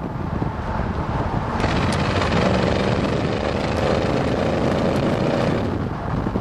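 Ford 390 FE V8 engine in a 1972 Ford F-100 running through headers and straight-through glass-pack mufflers, with a mellow exhaust note. The sound brightens about one and a half seconds in, then holds a steady note.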